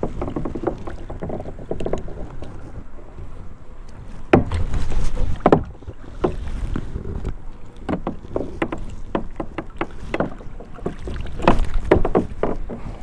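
Wind buffeting the microphone as a low rumble, with scattered knocks and clatter from handling a blue catfish held up on a metal fish gripper. The wind is loudest about four to six seconds in.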